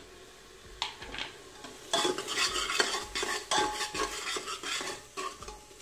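A metal ladle stirring and scraping masala in an aluminium pressure cooker, clattering against the metal pot over the sizzle of spices frying in hot mustard oil. A single knock comes about a second in; the stirring starts about two seconds in and stops shortly before the end.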